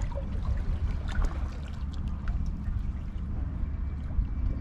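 Small waves lapping and trickling against the rocks, over a steady low rumble.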